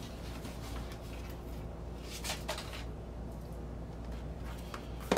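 A steady low hum under a few faint rustles and soft taps as a shrink-wrapped vinyl LP is handled on a desk, with one sharp click at the very end.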